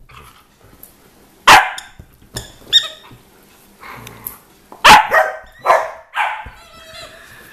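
Dogs barking in play: a handful of sharp barks, the loudest about one and a half seconds in and again about five seconds in.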